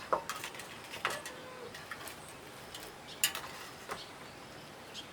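Irregular sharp knocks and clicks from bamboo shoots being handled and bundled, the loudest about three seconds in.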